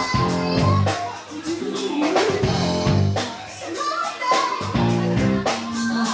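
Live band: a woman singing lead through a microphone over a steady drum kit beat and the band's pitched low backing notes.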